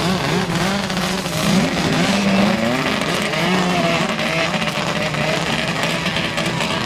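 Two 800-class two-stroke snowmobile engines revving and accelerating away, their pitch wavering up and down as the sleds pull off.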